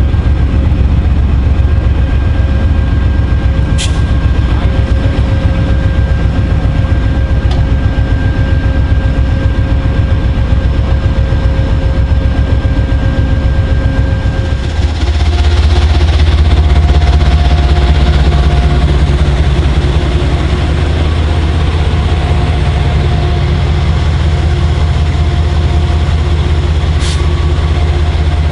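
GE Genesis diesel locomotives idling with a steady engine hum. First an Amtrak P42DC, then, about halfway through, an abrupt change to the louder, lower idle of a P32AC-DM heard close up.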